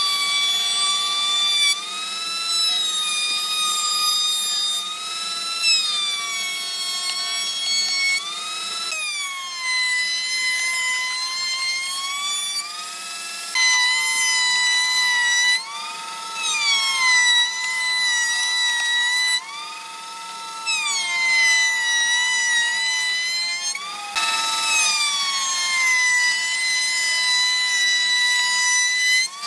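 Bench-mounted circular saw running with a high whine as small hardwood strips are ripped through it. The pitch shifts up and down several times as the blade is loaded and freed.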